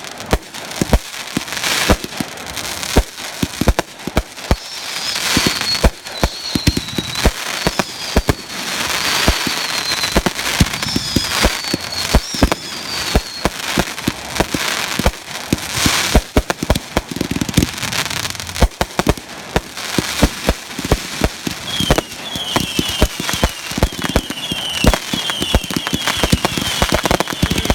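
Consumer fireworks going off in a rapid, continuous barrage of bangs, pops and crackling. Several whistles fall in pitch between about 5 and 13 seconds in, and a quick string of short repeated whistles starts about 22 seconds in.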